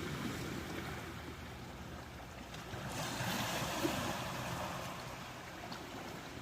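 Ocean waves washing on the shore, with one wave surging up about three seconds in and then fading.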